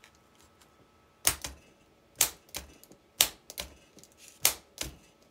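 Fiat 126 starter solenoid being bench-tested with a battery lead: four sharp clicks about a second apart, each followed by a fainter click, as the plunger snaps in and drops back each time the positive lead touches and leaves. The solenoid coil is working.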